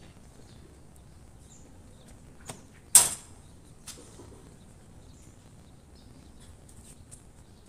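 Flag gear at the flagpole as the flag is fastened to the rope: one sharp, loud clack about three seconds in, with a smaller knock just before it and another just after.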